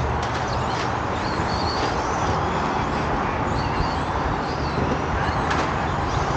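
Radio-controlled trucks racing around the track: a steady whir of motors and tyres, with faint whines that glide up and down in pitch and a few brief knocks.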